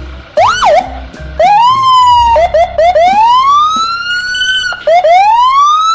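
Police siren sound: a quick rising-and-falling whoop, a held tone, a few short chirps, then two long rising wails, loud.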